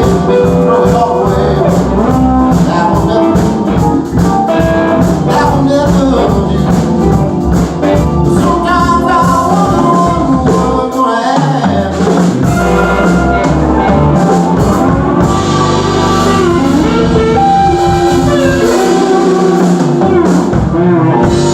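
Live band playing a bluesy rock song with a lead singer, drums, bass and electric guitar, loud and full throughout.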